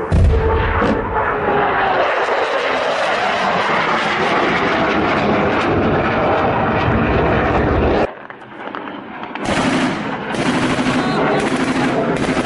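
A jet aircraft passing overhead, its loud steady engine roar filling the first eight seconds, then several bursts of automatic gunfire, each about a second long, starting about nine and a half seconds in.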